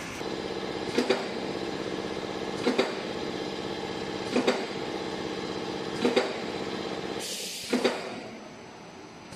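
Pet-chew production machinery running with a steady hum. A sharp double clack repeats evenly about every 1.7 seconds. Near the end comes a short hiss, after which the hum drops and goes quieter.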